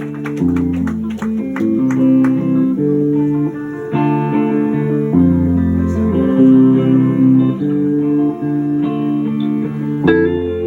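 Live band playing a slow waltz-time intro of guitar chords, with deep low notes landing about every five seconds.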